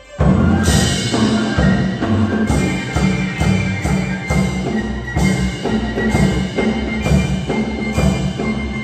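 Vietnamese traditional instrument ensemble music: the full ensemble comes in suddenly just after a quiet passage, with plucked lutes over a steady beat of drum and cymbal strokes about twice a second.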